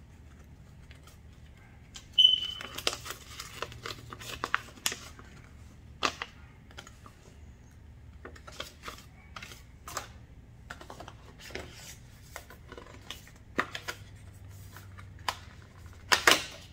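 Paper user manual being unfolded and handled, a string of crisp rustles and crackles. Just before the end, a louder scrape and crackle as a cardboard insert is handled in the box.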